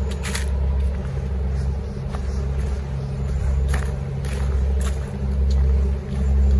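Wind buffeting the microphone: a low rumble that swells and eases in gusts.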